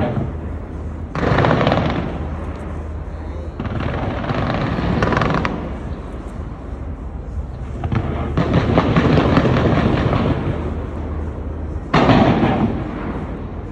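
Fireworks going off in dense volleys of booms and crackling, in waves, with sudden loud surges about a second in and again near the end.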